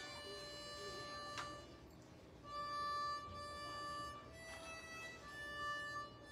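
A harmonica played solo: a slow melody of long, steady held notes, one after another.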